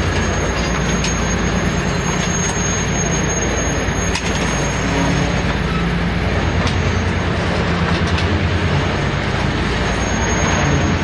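Several diesel locomotives running with a steady low drone as a train of rail cars rolls past close by, with a thin, steady high wheel squeal and a few sharp clicks of wheels over the rail.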